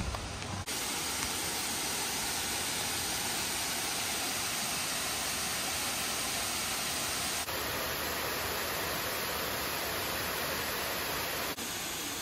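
Waterfall in heavy flow: a steady noise of falling water. Its tone changes abruptly three times, a little under a second in, past halfway, and near the end.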